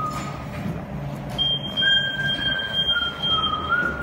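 Forklift squealing in thin, high tones that hold steady and then shift in pitch, over a low steady machine hum.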